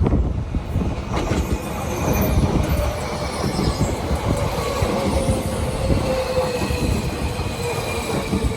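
Tobu Railway electric train running through the station: a steady rumble of wheels on rail with a high whine that slowly falls in pitch.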